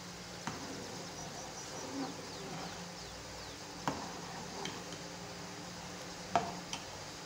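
A metal spoon stirring milk in a steel pot, clinking against the side of the pot now and then, with the sharpest clink a little past six seconds in. A steady faint hum runs underneath.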